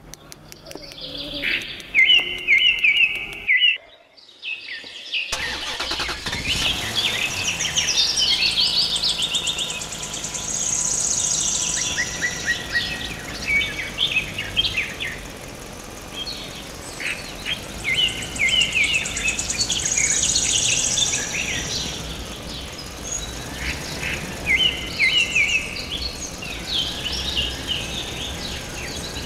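Birds chirping and singing in short repeated phrases, with a steady vehicle engine sound running underneath them. The sound drops out briefly about four seconds in.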